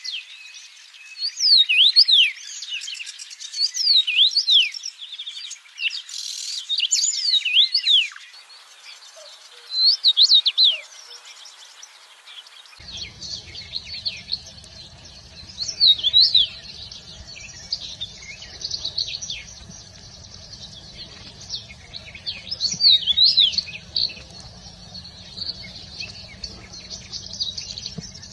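Several songbirds chirping and whistling, with many quick rising and falling notes in repeated bursts. About halfway through, the background changes and a steady low rumble comes in beneath the birdsong.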